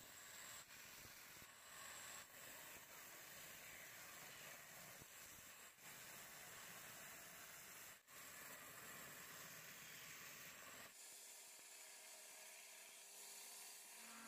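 Near silence: a faint steady hiss, broken by a few brief dropouts.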